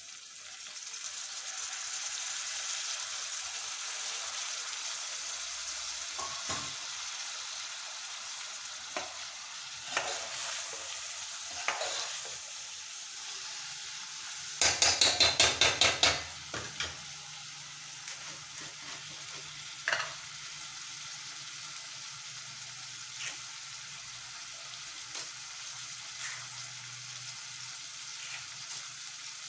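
Capsicum and potato pieces sizzling as they fry in an aluminium pot, with a metal spoon clinking and scraping against the pot as they are stirred. About halfway through comes a quick run of rapid scrapes, the loudest part. The sizzle eases after the first several seconds.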